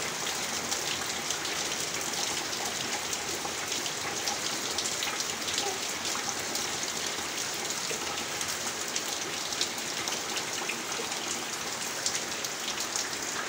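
Heavy rain falling steadily on banana leaves and tree foliage: a constant hiss of rain with many small drop hits.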